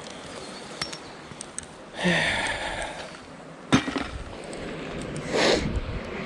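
A single sharp clink of a hard object about four seconds in, between two short rushes of noise.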